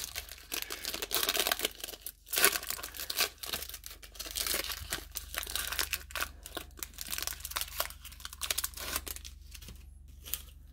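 Foil wrapper of a 1994 Score Series 2 baseball card pack being torn open by hand, crinkling and tearing in quick crackles that die down near the end.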